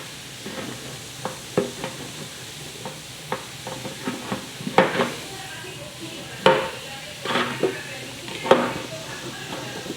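Toy packaging being handled: rustling and crinkling with scattered clicks and knocks, the loudest about five, six and a half and eight and a half seconds in.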